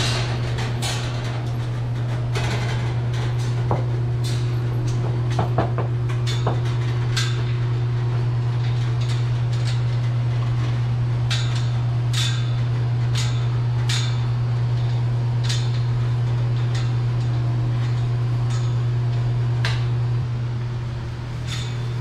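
Scattered knocks, clicks and metal rattles as goats and pen gates are moved, over a steady low machine hum that weakens near the end.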